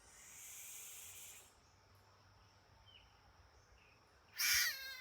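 Hyrax calling: a breathy hiss lasting about a second and a half, then near the end a loud, sharp call that slides down into a falling squeal.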